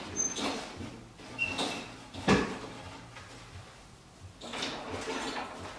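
Rustling and creaking as a person shifts about inside a wooden strip kayak slung from ropes, with a sharp knock a little over two seconds in.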